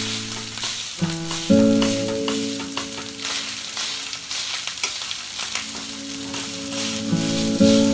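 Cooked white rice sizzling in a hot steel frying pan, with small clicks and scrapes as it is stirred and broken up. Background music with held plucked notes plays over it during the first few seconds and again near the end.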